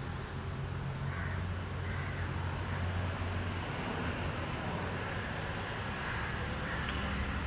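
Outdoor background noise with a steady low engine-like rumble, such as distant traffic or an aircraft, and a few faint short higher sounds.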